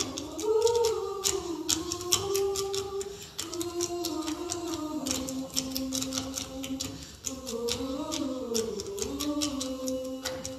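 A choir singing a cappella in long held notes that slide from pitch to pitch, with many quick, crisp clicks over the voices.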